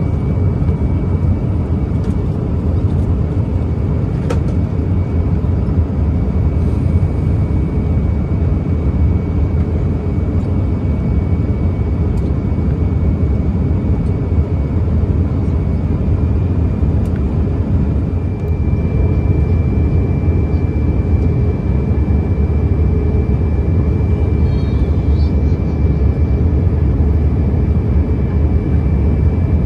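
Steady low cabin rumble inside an Airbus A321-131 on descent, the airflow and engine noise heard from a seat beside the wing. A faint high steady whine runs over it and shifts slightly up in pitch about halfway through.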